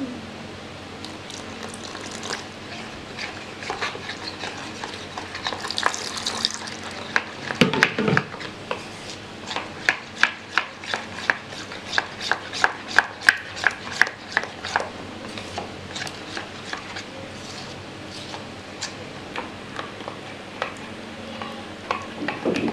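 Metal spoon stirring rice-flour batter in a plastic bowl. In the middle stretch the spoon clicks and scrapes against the bowl in a quick run, about two or three strokes a second, then settles to softer stirring.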